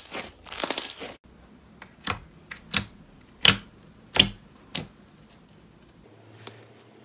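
Slime being handled: dense crackly crunching for about a second that stops suddenly, then about six sharp, separate clicks or pops spread over the next few seconds.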